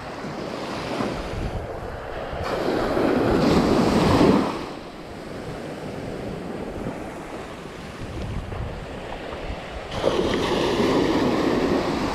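Small surf waves breaking and washing up the sand at the shoreline, with wind on the microphone. One wave swells up and breaks about four seconds in, and another breaks suddenly near the end.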